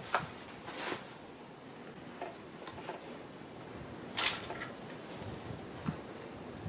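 Scattered metallic clicks and clacks of a Remington 11-87 20 gauge shotgun being handled between shots, with one sharper clack about four seconds in.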